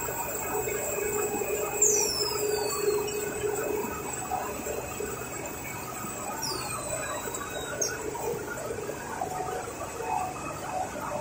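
Three-layer stretch film making machine running steadily with a thin, steady high whine. Two high squeals fall in pitch, each lasting about a second: the first comes about two seconds in and the second about four and a half seconds later.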